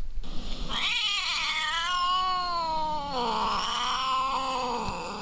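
A cat yowling, one long drawn-out caterwaul that wavers in pitch and shifts about three seconds in.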